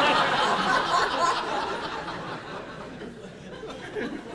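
Audience of wedding guests laughing together, loudest at the start and dying away over about three seconds.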